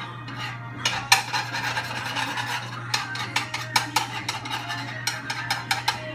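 A utensil scraping and clicking against a frying pan and a plastic butter tub as butter is scooped out and put into the pan, a quick run of sharp clicks and scrapes over a steady low hum.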